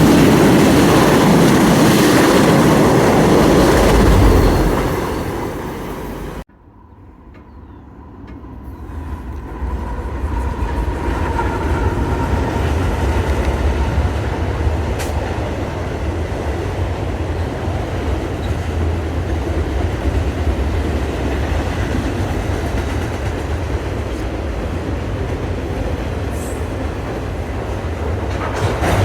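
Train rolling past at close range with a steady low rumble of wheels on the rails. It is loudest over the first few seconds, drops away and breaks off sharply about six seconds in, then builds back into an even rumble of cars rolling by.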